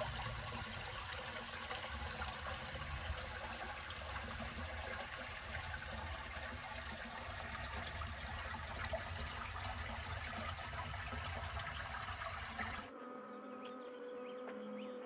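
Small creek trickling and flowing steadily. Near the end it cuts off suddenly, leaving a quieter background with a faint steady tone.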